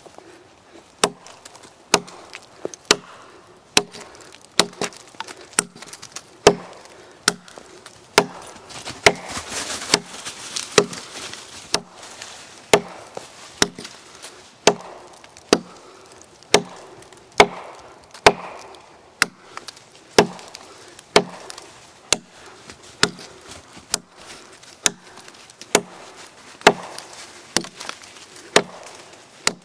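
Gränsfors Bruks Mini Hatchet chopping into a log: a sharp knock of the steel head biting the wood about once a second, in a steady, even rhythm.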